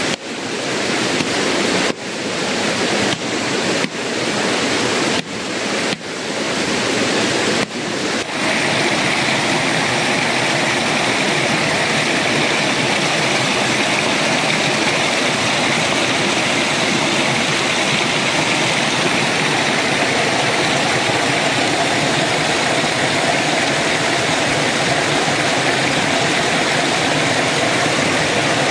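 Shallow rocky river rushing steadily over stones. In the first eight seconds the sound drops out for a moment every second or two and swells back; after that the flow runs on evenly.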